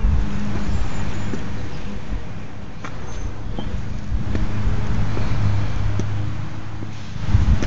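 Steady low hum of an idling vehicle engine, with uneven low rumbling on the microphone and a few faint clicks.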